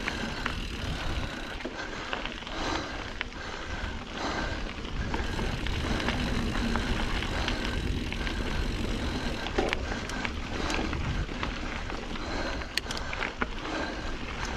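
Norco Sight A2 full-suspension mountain bike riding dirt singletrack: a steady low rumble of knobby tyres rolling over the trail, with scattered clicks and knocks as the bike rattles over rocks and roots.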